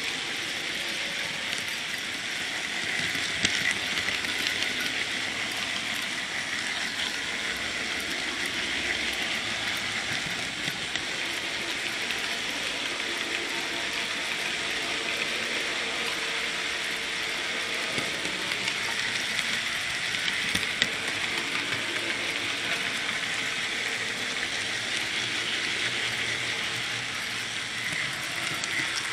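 N gauge model train running along the track, picked up on board: a steady whirring of the small motor and gearing, with a couple of sharp clicks.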